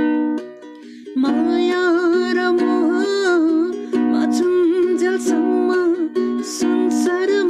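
A man singing a bhajan (devotional song) to his own strummed ukulele. The strumming drops away briefly about a second in, then voice and ukulele come in together.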